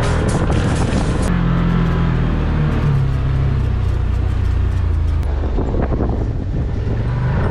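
Off-road vehicle engine running with a steady low hum, its pitch shifting slightly about three seconds in.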